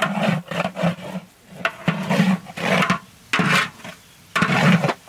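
A long spatula scraping and stirring spices frying in oil in a large aluminium cooking pot, in repeated irregular strokes about one or two a second.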